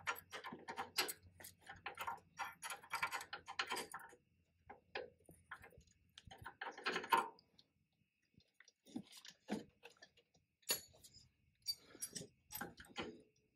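Irregular metal clicks and clinks of hand tools working at a front brake-line fitting and its retaining clip. The clicks are dense at first, then come in sparser groups after a short pause.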